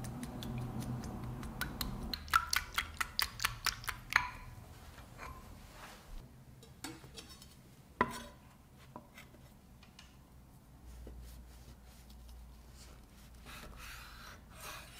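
Wire whisk beating eggs and milk in a glass bowl, ending in a quick run of sharp clinks against the glass about two to four seconds in. Then a kitchen knife cuts through soft sandwich bread, with a sharp knock of the blade on a wooden cutting board about eight seconds in and soft rasping through the crust near the end.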